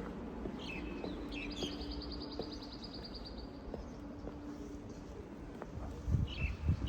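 Small songbirds chirping, with a quick rattling trill lasting about two seconds early on and more short calls near the end. Beneath them is a faint steady hum of city background, and a few low thumps come near the end.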